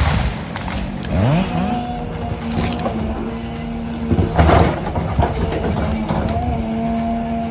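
A machine's engine revving up about a second in and then running at a steady high pitch, with a loud knock near the start and another around halfway through.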